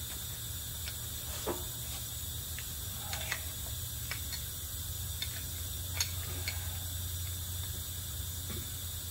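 Light clicks and taps of metal transfer-pump parts being handled and cleaned, a few scattered knocks with the sharpest about a second and a half and six seconds in, over a steady low hum.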